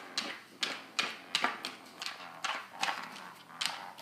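A dog's claws and paws tapping and scratching on the floor in quick, irregular clicks, about three a second, as it paws and pounces at a toy.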